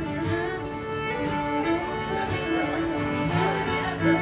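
Fiddle playing a melody over strummed acoustic guitar: an instrumental break in a country song.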